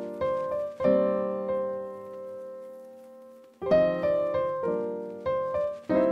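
Piano music: chords struck one after another, each starting sharply and fading. One chord is left to ring and die away for about three seconds in the middle before the playing picks up again.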